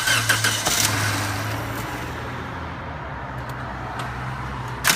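2003 Toyota Corolla's four-cylinder engine cranking and catching, loudest over the first second, then running on with a steady low hum, with another sudden burst of noise right at the end. This is a car that starts but won't hold an idle and shuts itself back off.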